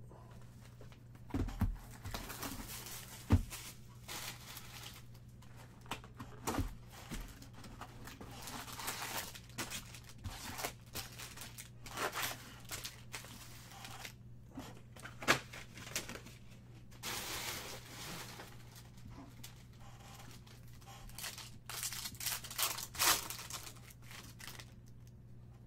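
Foil trading-card pack wrappers being torn open and crinkled, with rustling of packs and cards handled, and a few sharp knocks. A low steady hum runs underneath.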